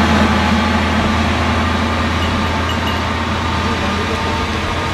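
Small diesel locomotive hauling a tourist trolley train along the track, its engine a steady low hum that slowly fades as the train moves away.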